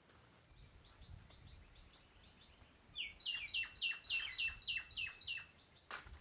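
A songbird singing: a faint run of quick chirps, then a loud series of about ten repeated sharp notes at roughly four a second. A single sharp click comes near the end.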